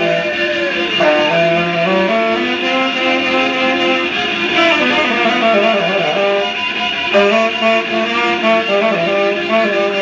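Violin and tenor saxophone playing a tune together live, with some sliding notes.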